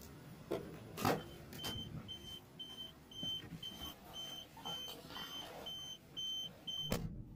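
A car's electronic warning beeper sounding a dozen or so short, high beeps at about two a second, with a couple of clicks just before they begin. The beeping stops with a loud thump of a car door shutting.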